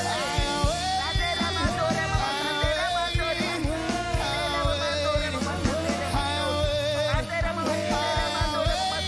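Worship music: a voice sings a gliding, held melody over a band with sustained bass and a steady beat.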